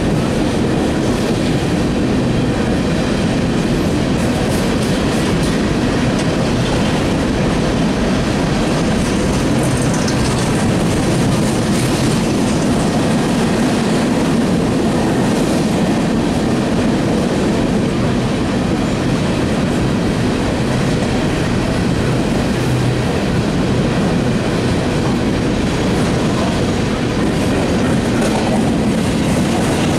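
Empty Union Pacific coal train's cars rolling past: a steady, continuous rumble and clatter of steel wheels on the rails.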